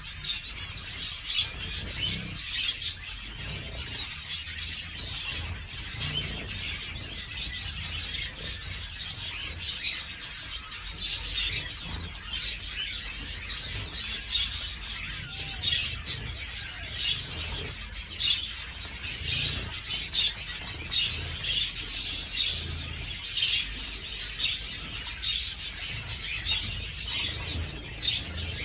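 A flock of zebra finches calling with many short, high chirps that overlap continuously, with wings fluttering as the birds bathe in a shallow tray of water.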